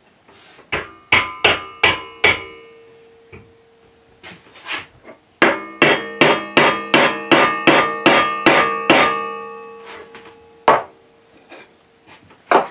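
Mallet tapping a lathe spindle into a cast iron headstock, driving it through the drive sprocket into the rear bearing. A few taps, a pause, then a quick even run of about a dozen taps at roughly three a second, and two last single taps. Each tap is followed by a short metallic ring.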